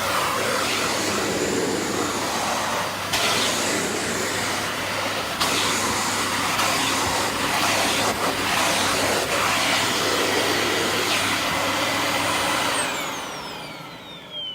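Dyson Light Ball Animal upright vacuum cleaner running with a steady hum and whine, then switched off about 13 seconds in, its motor's whine falling as it spins down.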